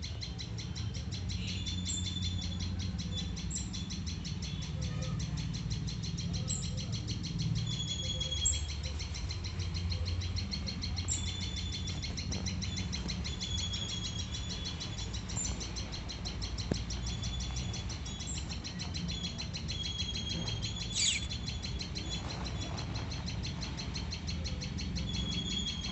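Hatching baby birds peeping: short, high cheeps repeated every second or two, with one louder call about 21 seconds in, over a steady low hum.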